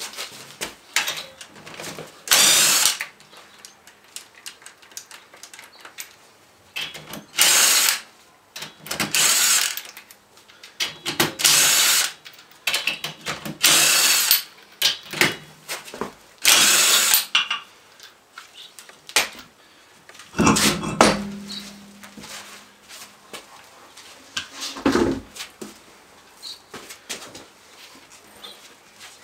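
A handheld power tool runs in short bursts, about six times, spinning lug nuts during a wheel swap. There are heavier knocks later on.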